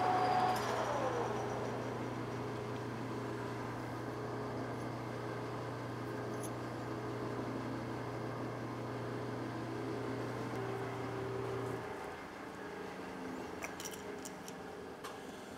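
Metal lathe after parting off a brass gear blank: the cutting whine stops and falls in pitch just after the start as the spindle slows. A steady low hum is left, which cuts off about twelve seconds in, followed by a few faint clicks.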